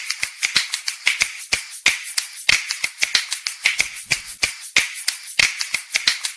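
Percussive music: a fast, busy pattern of sharp clicks and snaps, with an occasional low thump and no melody.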